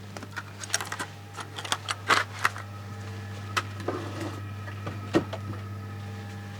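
Irregular light clicks, taps and knocks of objects being handled and set down, thickest in the first two and a half seconds and sparser after, over a steady low electrical hum.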